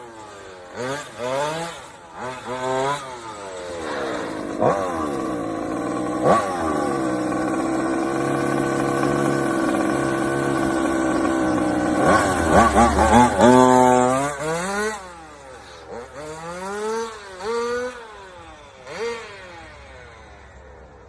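Radio-controlled car's small engine revving up and down again and again as it is driven, with a long stretch of steady high revs in the middle before it speeds up and slows down several more times.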